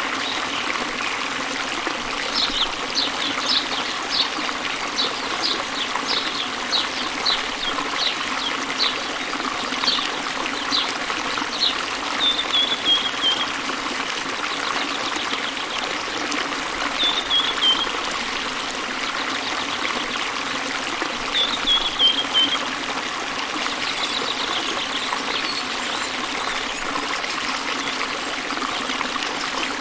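Waterfall water splashing and running steadily, with a small bird calling over it: a run of short, high chirps about two a second for some ten seconds, then a few short descending trills spaced several seconds apart.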